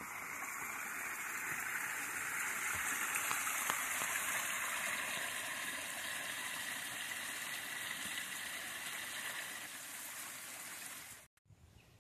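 Steady rush of water at a falls, swelling over the first couple of seconds and then cutting off suddenly near the end.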